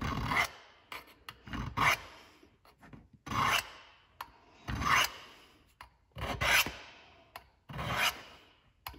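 Buck 346 Vantage Select knife blade drawn down the rods of a V-style rod sharpener: about six scraping strokes, one every second and a half or so.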